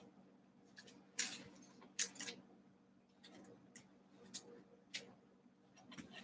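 Trading cards handled by hand: a few short, soft flicks and slides of cards against each other, the two clearest about one and two seconds in, over a faint steady low hum.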